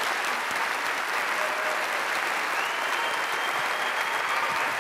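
Large audience applauding steadily after a talk ends.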